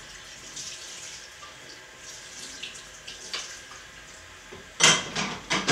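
Water running into a kitchen sink, with scattered small splashes. About five seconds in come a few loud, sudden splashing clatters.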